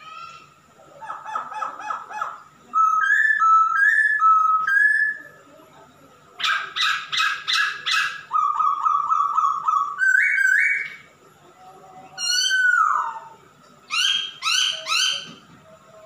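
Male black-throated laughingthrush (Poksay Hongkong) singing hard: a varied run of loud, clear whistled phrases made of quick repeated notes, short rising whistles and a downward-sliding whistle, broken by short pauses.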